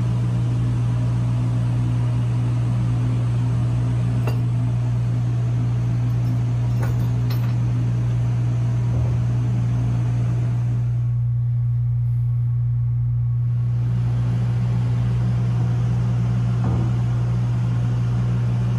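Steady low drone of running machinery in a ship's engine room, with a few faint clicks of metal injector parts being handled and set down.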